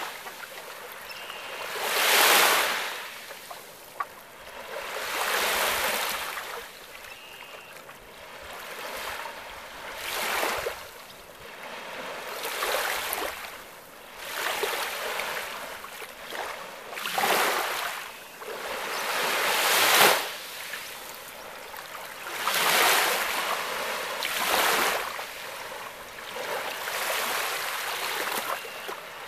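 Small lake waves breaking and washing up a sandy shore, a new wash of water every two to three seconds.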